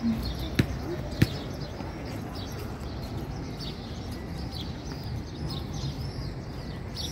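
Many small birds chirping busily over a steady background hum, with two sharp knocks in the first second and a half.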